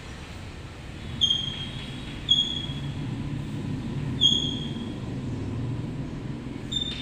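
Chalk squeaking against a blackboard during writing: four short, high squeaks, each dipping slightly in pitch, over a low background rumble.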